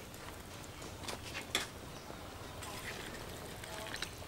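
Pot of soup simmering, with a few soft plops and clicks as pieces are dropped into it and a metal ladle goes in near the end.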